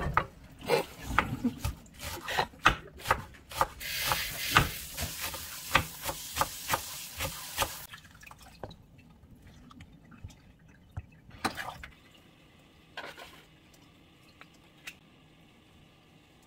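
A run of sharp knocks and clinks from a knife chopping scallions on a wooden cutting board and a spoon stirring thin bánh xèo batter in a stainless steel bowl, with a wet swishing about four seconds in. The second half is much quieter, with only a few scattered taps.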